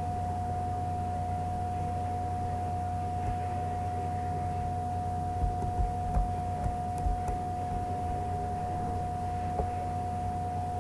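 A steady whining tone over a low electrical hum, the background noise of the recording setup, with a few soft clicks about halfway through and one more near the end.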